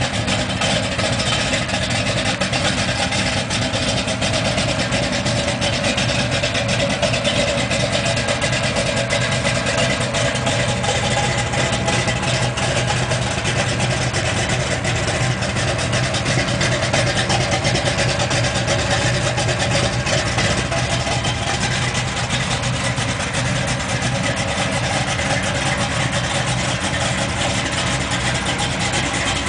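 A 383 stroker small-block V8 in a 1966 Chevy C10 idling steadily, an even low drone that does not change.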